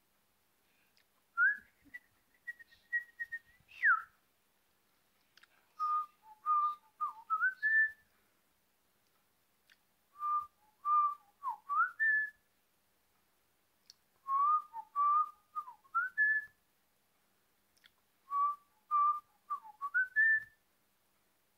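A whistled tune: an opening line, then one short phrase of a few even notes ending in a rising glide, repeated four times with short pauses between, with a few faint clicks.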